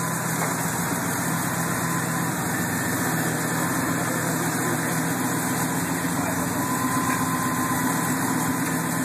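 V8 engine idling steadily, a continuous even rumble with no revs.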